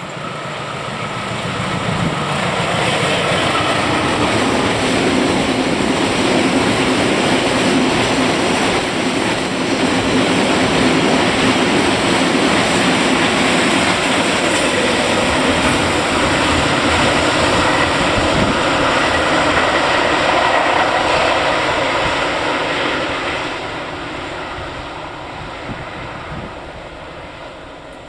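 A train passing close by: its running noise builds over the first few seconds, holds loud for about twenty seconds, then fades away near the end.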